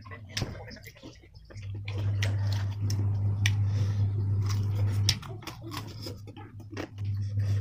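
Close-up eating sounds of a person chewing and biting on pieces of duck curry eaten by hand, with many short wet mouth clicks and smacks. A steady low hum comes in about a second and a half in, drops out about five seconds in, and returns near the end.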